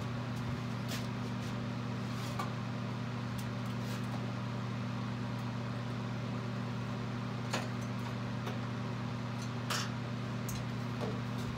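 Steady electric fan hum, with a few faint clicks and knocks scattered through it.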